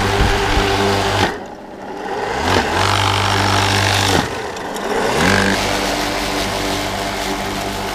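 Rotary lawn mower driven by a 2.2 kW, 3000 rpm electric motor, running with a steady hum. About a second in and again about four seconds in, the motor bogs down sharply and spins back up with a rising whine, typical of the blade digging into the ground.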